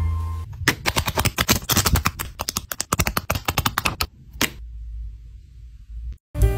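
Scissors snipping through a paper sticker sheet in a fast run of crisp cuts for about three seconds, then one last snip.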